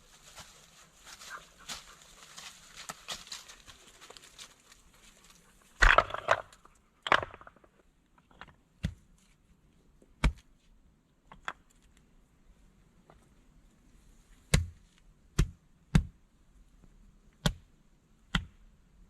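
Rustling and crackling for about five seconds, then about ten sharp chopping strikes on wood at irregular intervals, the first two the loudest.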